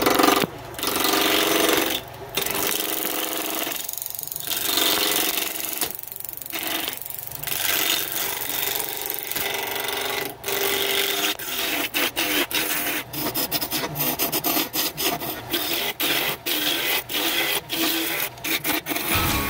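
Gouges cutting a spinning cherry blank on a wood lathe: a continuous rough scraping hiss of wood being peeled into shavings. In the second half the cuts start and stop, breaking up into many short bursts.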